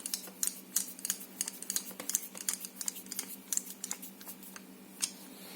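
Rapid, irregular small metal clicks and ticks as the screw that holds the core in an ABUS 72/40 padlock is driven back in with a screwdriver. The clicking thins out near the end.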